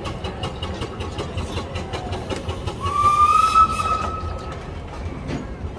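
A steam engine's whistle gives one blast of about a second and a half, starting about three seconds in with a slight rise in pitch, over a steady low rumble.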